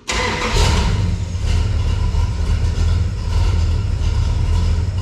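Dodge D100 pickup's small-block V8 starting and catching almost at once, then running at a steady idle. The engine is being run to check the belt drive on a newly fitted two-groove water pump pulley.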